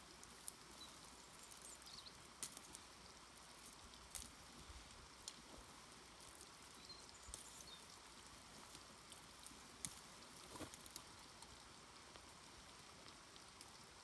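Near silence: a faint steady hiss with a scattering of small, sharp clicks and taps, the clearest about half a second in, around two and a half, four and ten seconds in.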